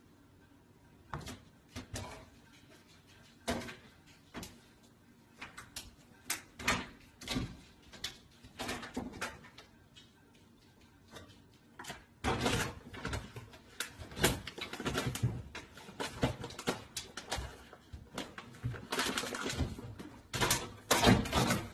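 A cat's claws scrabbling and knocking against a microwave and a kitchen cabinet door as it climbs and hangs there: irregular sharp knocks and scrapes, scattered at first and denser and louder from about halfway through.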